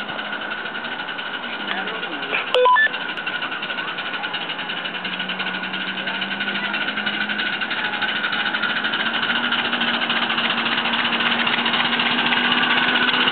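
A 7¼-inch gauge 0-6-0 miniature steam locomotive, double-headed with a battery-electric locomotive and hauling a loaded train, running toward the listener; its steam and running noise grow steadily louder as it nears. A short beep about two and a half seconds in.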